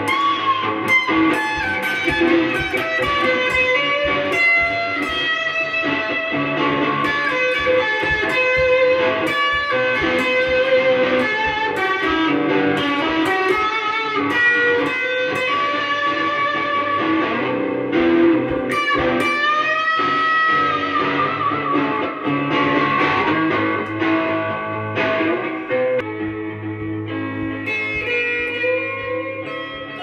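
Strat-style solid-body electric guitar with Tex-Mex single-coil pickups, played through a Boss Katana amplifier with some gain: fast picked lead lines, with a held note bent up about eighteen seconds in.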